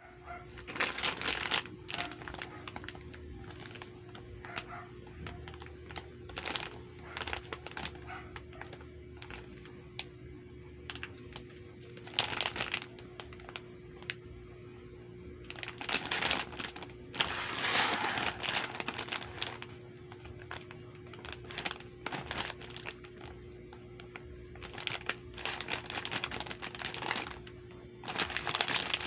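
Sugus chewy candies being handled and unwrapped: crinkling of the wrappers in short bursts every few seconds, the longest about two seconds, over a faint steady hum.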